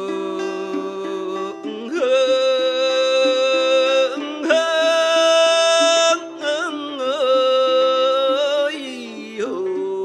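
Live improvised music: long, held melody notes that grow louder about two seconds in and waver briefly near the seventh second, over a lower accompaniment of shorter plucked notes.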